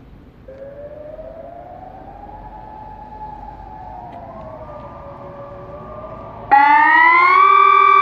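Distant civil-defence sirens sound faintly, slowly rising and falling in pitch. Near the end, a Sonnenburg SES 1000 electronic siren close by starts abruptly, much louder and harsher, rising in pitch. This is the Swiss "Allgemeiner Alarm" (general alarm) wailing signal being tested.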